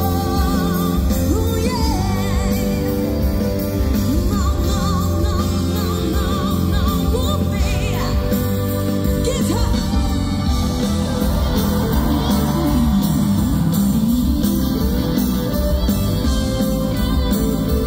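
A woman singing live into a handheld microphone with vibrato over loud pop-rock backing music, heard through the concert PA from the audience.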